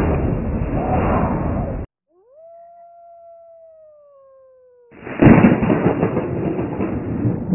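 Sound-effects track of a 3D animation. A dense noisy sound cuts off suddenly. After a brief gap comes one long howl-like tone that rises quickly, then slides slowly down for nearly three seconds. A loud noisy clamour starts again near the end.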